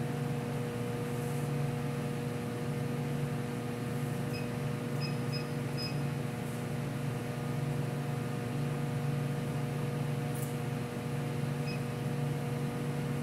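A few short high beeps from a refrigerant leak monitor's keypad as its buttons are pressed: a cluster of them about four to six seconds in and one more near the end. Underneath is the steady, multi-tone hum of machinery in a chiller machine room.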